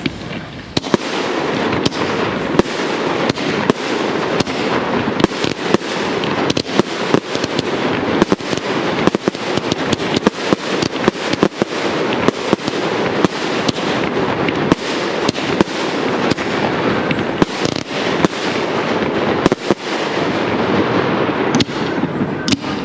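Fireworks display firing without a break: a dense stream of sharp bangs and crackling, many per second, thinning slightly near the end.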